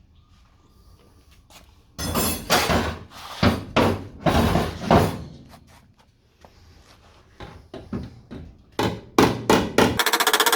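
Metal panel-beating blows on the steel rear quarter panel of a Mk2 Ford Escort, working out a dent: a run of ringing strikes, a short pause, then a quicker run of sharper taps. Right at the end a power tool starts running steadily.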